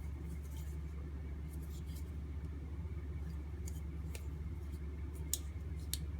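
Faint light clicks and taps of an aluminium-handled automatic knife being turned over in the hand, scattered a few times over a steady low hum.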